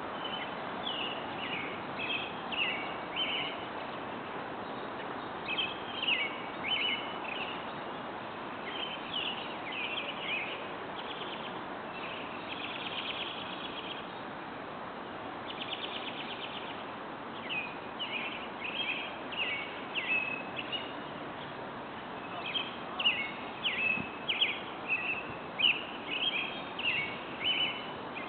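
Birds chirping in quick clusters of short high notes, with a couple of buzzy trills midway, over a steady hiss of outdoor background noise.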